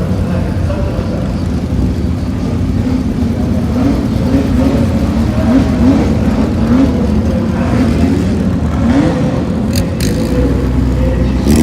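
Racing car engine running and being revved in a series of short throttle blips, the pitch rising and dropping back about every half second through the middle. A couple of sharp clicks come near the end.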